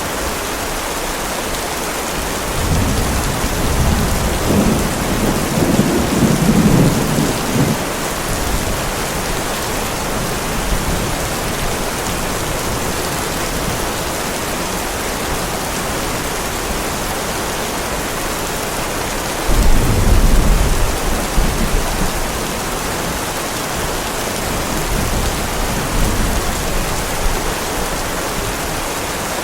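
Heavy rain falling in a steady hiss, with rolling thunder: a long deep rumble starting about two seconds in, another sudden louder clap and rumble about two-thirds of the way through, and a weaker roll shortly after.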